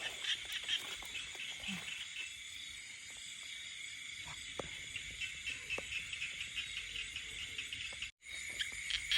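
Night chorus of insects and frogs, a steady high trilling with fast pulsing, with a few faint knocks partway through. The sound cuts out completely for a moment near the end.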